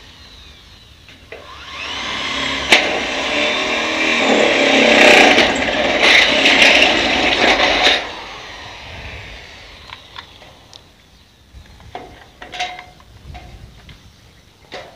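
Electric hand drill spinning up and boring through thin galvanised light-gauge steel C-profile to make a bolt hole, from about two seconds in until it stops about eight seconds in. After that, a few light clicks.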